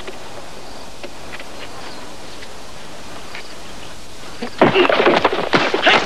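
Steady hiss of background noise, then about four and a half seconds in, a sudden loud burst of a staged fistfight: thuds of blows and yells.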